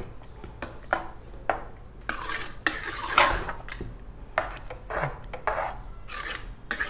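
Steel ladle stirring thick potato-onion curry in an aluminium pressure-cooker pot, scraping and clinking against the pot in repeated strokes, roughly one or two a second.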